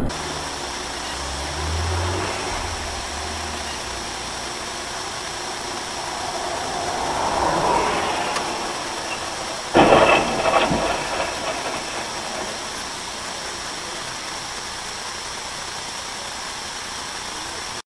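Steady vehicle running noise, swelling briefly, with a sudden loud bang about ten seconds in.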